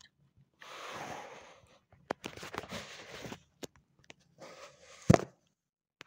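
Handling noise close to the microphone: three spells of rustling and scraping with a few sharp clicks, and a loud knock about five seconds in.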